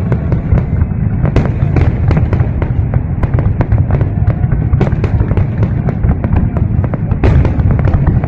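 Fireworks exploding in rapid succession: many sharp cracks and pops, several a second, over a constant low rumble of booms.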